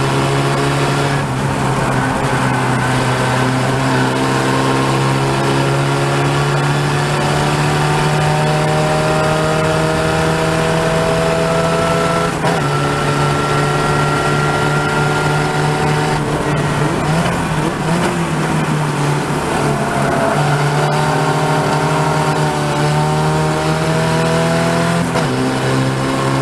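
Open-wheel race car's engine heard from the cockpit, climbing slowly in pitch as it accelerates, with a sudden drop in pitch about halfway. A little later the note falls and wavers for a few seconds before climbing again, and drops once more near the end. Rushing wind and road noise run under it.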